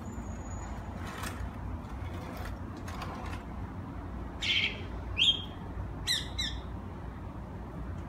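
Caged shama giving short, sharp calls. A brief thin whistle comes at the start, and a cluster of loud notes falling in pitch comes about four and a half to six and a half seconds in, over a steady low background rumble.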